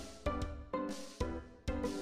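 Background music with a steady beat: struck notes with drum hits about twice a second, each fading before the next.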